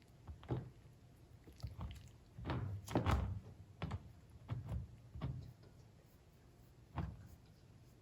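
A Chihuahua-poodle puppy knocking a plate about on the floor: a run of irregular dull thunks and knocks, the loudest about three seconds in, then a single knock near the end.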